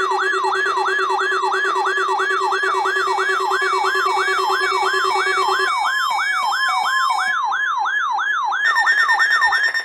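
A weather radio receiver's electronic alert siren sounding over steady alarm tones, set off by the NOAA Weather Radio warning alarm during a required weekly test. The siren is a falling sweep repeated about three times a second. The steady tones under it shift: one low tone stops about halfway through, and a higher tone joins near the end.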